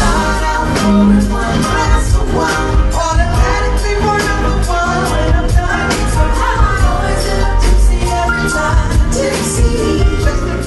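Upbeat pop/soul music with singing and a steady beat, cutting off abruptly near the end.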